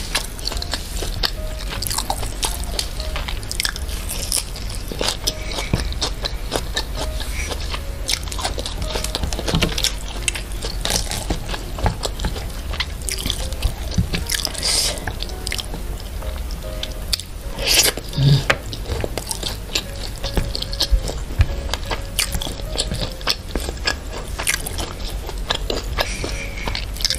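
Close-miked eating: chewing, biting and crunching of crisp fried food (fried duck, crispy fried tofu), with many small wet mouth clicks and fingers picking at food on a plate. A steady low hum runs underneath.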